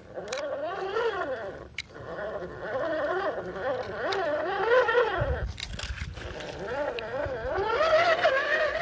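Electric motor and drivetrain of an RGT EX86100 V2 RC crawler whining as it drives through mud, the pitch rising and falling over and over with the throttle. There is a short low rumble about halfway through.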